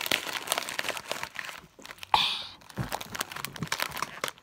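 BeanBoozled jelly bean bag crinkling as hands handle it and reach in, a run of short rustles with one louder crackle about two seconds in.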